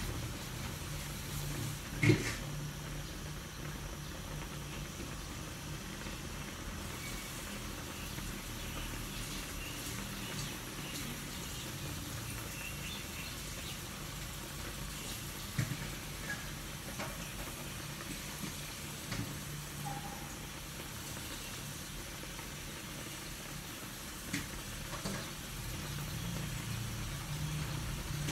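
Tocino boiling in its marinade in a wok, bubbling and popping steadily over a low steady hum, with one sharp tap about two seconds in.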